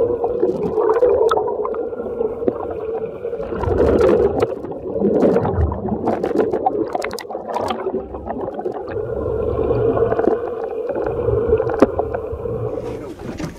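Underwater sound heard through a submerged camera: muffled water noise with a steady low hum and scattered sharp clicks and splashes.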